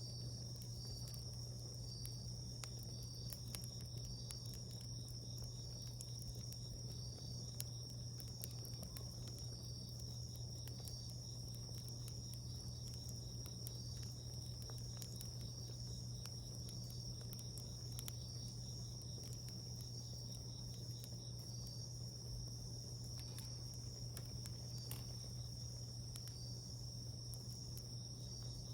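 Insects trilling steadily, with a second insect chirping about once a second, over a wood fire giving scattered crackles and pops; a steady low hum runs underneath.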